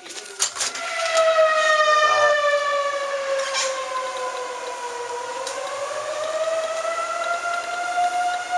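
Outdoor civil-defence siren sounding a tornado warning: a loud, steady wailing tone that sets in about a second in, slides down in pitch for a few seconds, then climbs back up and holds.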